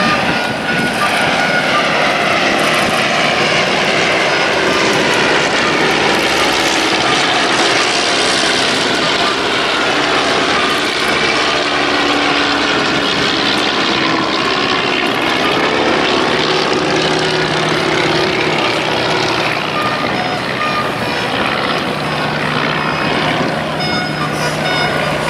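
Piston engines of small vintage propeller biplanes flying an aerobatic display overhead, the engine note steady in loudness but rising and falling in pitch as the aircraft climb, dive and pass.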